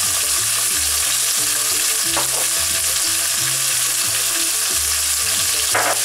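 Halved cherry tomatoes sizzling steadily in hot olive oil in a pan over a high gas flame.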